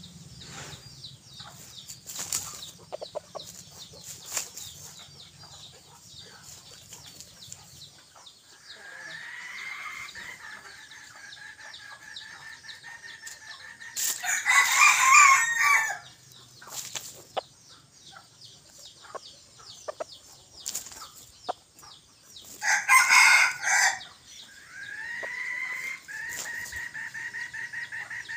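Red junglefowl rooster crowing loudly twice, about halfway through and again about two-thirds of the way in, each crow short and clipped. Between the crows come long steady high tones and light clicks.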